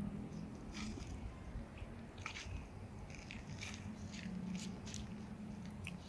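Soft, irregular crunches and rustles of dry leaves as a giant tortoise moves its head and feet in the leaf litter, over a low steady hum.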